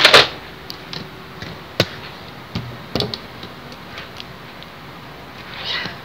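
Kitchen handling sounds: a loud, short noisy clatter at the start, then scattered knocks and clicks of items being handled and set down.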